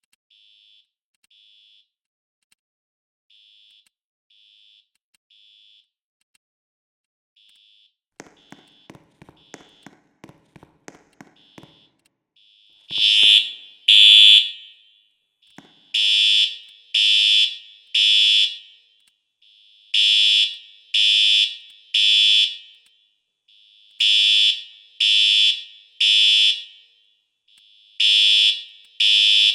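Fire alarm beeping: faint at first, then, after a quick run of clicks about eight seconds in, loud beeps in groups of three with a short pause between groups, the three-beep evacuation pattern.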